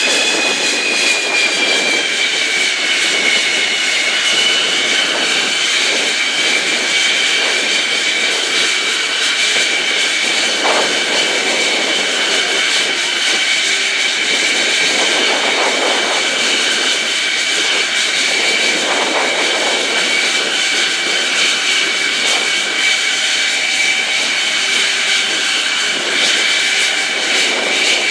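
Lockheed U-2's turbofan engine idling: a steady, loud jet whine with a rushing noise under it. The pitch sags slightly in the first few seconds, then holds.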